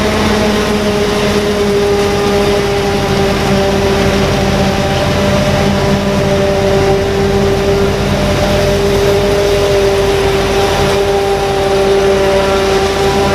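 Claas Jaguar 870 forage harvester chopping standing corn under load, a steady drone with a held whine that wavers slightly in pitch. It is mixed with the engine of the Massey Ferguson tractor pulling the dump wagon alongside.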